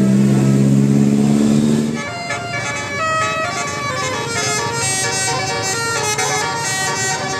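Bus telolet horn, a set of musical air horns: a low held chord for about two seconds that cuts off, then a quick melody of high horn notes.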